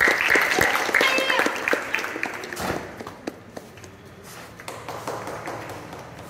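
Loud, high-pitched shouting from girls sparring in karate for about two seconds, then a single thud about two and a half seconds in, with quieter voices after.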